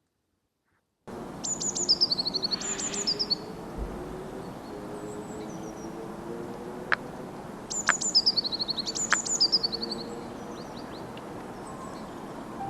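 A small songbird singing twice, each song a few high down-slurred notes running into a fast trill, with a few sharp clicks between. The sound begins about a second in.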